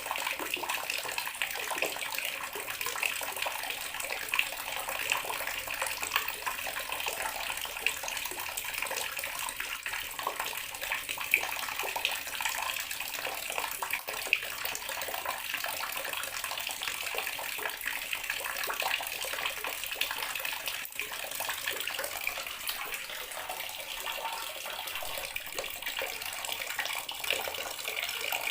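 Bathroom water tap running steadily, the stream splashing into a basin or tub with a constant rushing sound and small irregular splashes.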